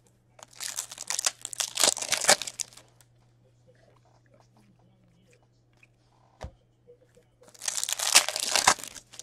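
Foil wrapper of a Topps Chrome baseball card pack crinkling and tearing as it is ripped open by hand, in two bursts of a couple of seconds each, with a single click between them.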